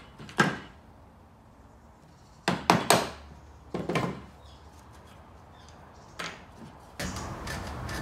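Mallet striking a narrow chisel chopping out waste in softwood spruce, in sharp wooden knocks: one about half a second in, a quick run of three or four around two and a half to three seconds, two more around four seconds and a lighter one near six. Near the end a steadier noise of the board being handled takes over.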